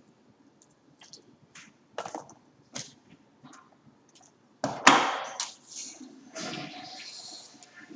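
Objects being handled: a few light knocks and clicks, then a louder clatter about five seconds in, followed by a second or two of rustling.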